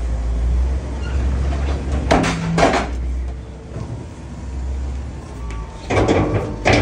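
Tire baler at work: a steady low machine hum with loud heavy clunks in two pairs, about two seconds in and again about six seconds in.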